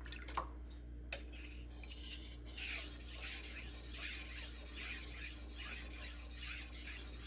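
Steel knife blade stroked back and forth on a soaked 1200-grit Juuma Cobalt Blue waterstone, with a steady rasping rhythm of about two strokes a second starting a couple of seconds in. It is preceded by a couple of light clicks.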